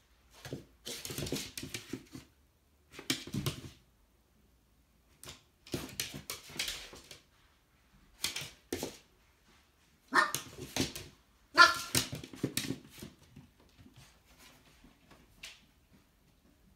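Lhasa Apso puppy barking in about six short bouts of yaps, the loudest between about ten and thirteen seconds in; it is facing its own reflection in a mirror.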